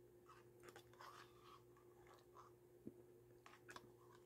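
Faint eating sounds from a cup of yogurt: a utensil clicking and scraping in a small plastic cup, and soft mouth sounds. A sharper click comes near the middle and a few more follow near the end, over a steady low hum.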